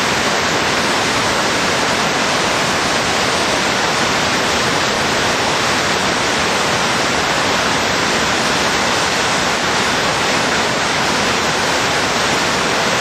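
Big Drop Two rapid in high water: the big standing waves of whitewater rushing, a steady, loud and even noise with no breaks.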